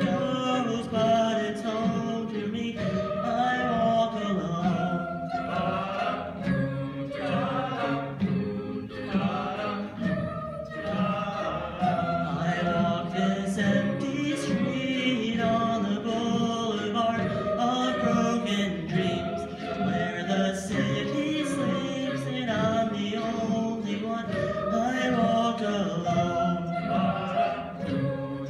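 Mixed-voice a cappella group singing with no instruments, a male lead voice carried over sustained backing harmonies from the rest of the group.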